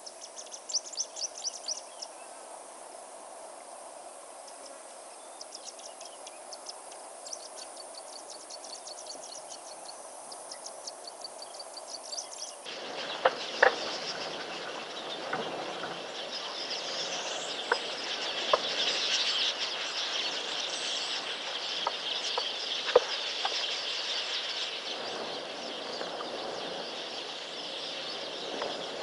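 Wild birds calling in the bush: runs of rapid repeated chirps, then, from about halfway through, a denser and louder chorus of birds and insects with a few sharp knocks.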